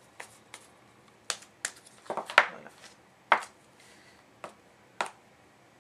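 A series of about nine light, irregular taps and knocks as a small stretched canvas and a rubber stamp are handled and set down on a work table during stamping. The sharpest tap comes about two and a half seconds in.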